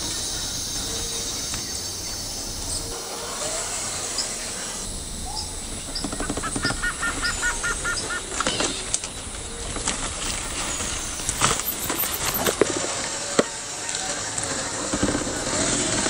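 Tropical forest ambience: a steady hiss of background noise, with a bird calling a quick run of about eight repeated notes about six seconds in. Scattered sharp clicks and snaps follow in the middle of the stretch.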